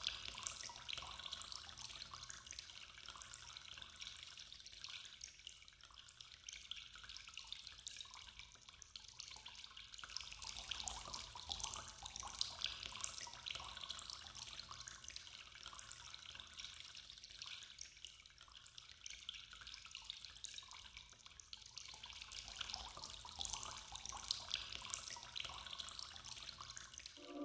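Faint water trickling and dripping: a steady, crackly hiss that swells and fades a little.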